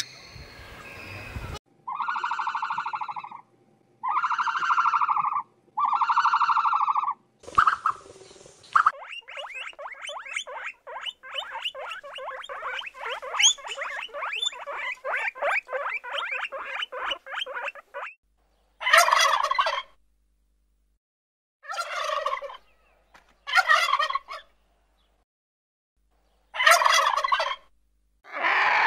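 A series of animal calls separated by short silences: three pulsed calls, then a long run of rapid chattering notes, then four harsher calls.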